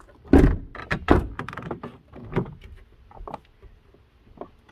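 Ram ProMaster van door being shut and opened: two heavy thumps in the first second or so, then a run of lighter knocks and latch clicks that dies away about three and a half seconds in.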